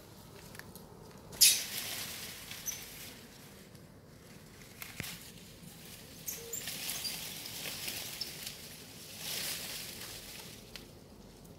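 Dry leaves rustling and crackling in several bursts. The sharpest and loudest burst comes about a second and a half in, and a longer, softer swell follows near the end.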